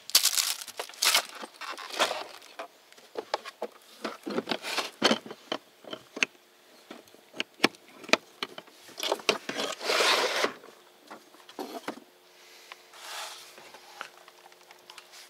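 Fishing gear being moved around in a small boat: a run of clicks, knocks and scrapes from plastic tackle boxes and cases being picked up and set down, with a longer scraping rustle about ten seconds in.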